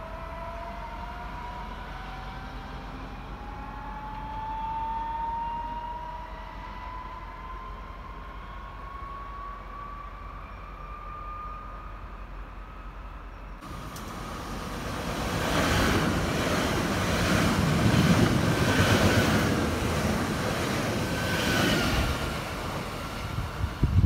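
Red electric multiple-unit train accelerating away, its traction motors giving a steadily rising whine. About 14 s in the sound changes abruptly to the louder rumble of a second electric train approaching on the rails, building towards the end.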